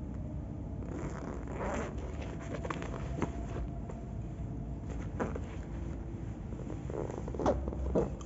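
Steady low rumble in an empty underground car park, with scattered soft clicks and scuffs and two sharper ones near the end.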